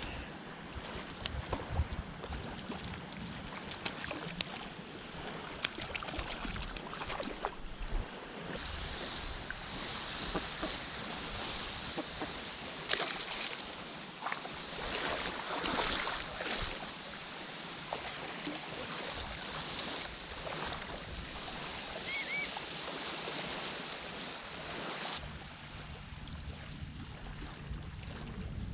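Shallow bay water lapping and splashing around a wading angler, with wind on the microphone. A hooked sea robin splashes at the surface near the start.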